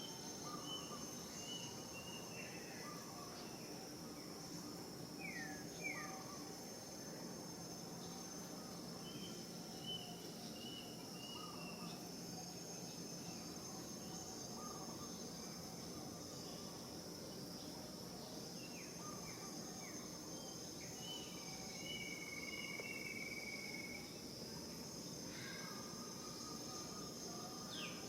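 Steady high-pitched drone of insects, crickets or cicadas, with scattered short chirping calls and a few quick falling notes over it.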